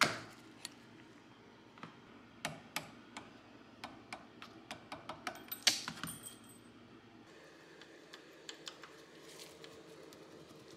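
Sharp metallic clicks and clinks from the rusted lock frame and hammer of a Mauser C96 pistol being worked by hand in a vise. A loud click comes at the start and a quick run of clicks between about four and a half and six and a half seconds in. After that only a few faint clicks remain.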